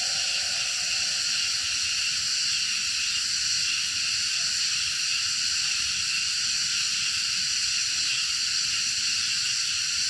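A steady, even high-pitched hiss that holds its level throughout, with a lower tone dying away in the first half second.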